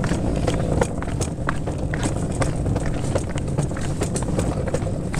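Footsteps of someone walking with a handheld camera, sharp steps about twice a second over a steady low rumble of handling and wind noise.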